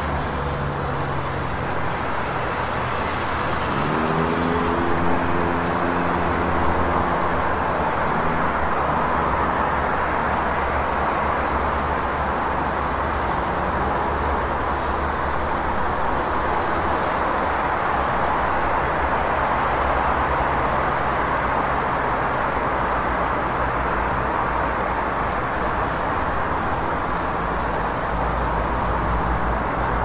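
Dense city street traffic: a steady hum of engines and tyres from many cars. About four seconds in, one vehicle's engine rises in pitch and holds for a few seconds as it pulls away.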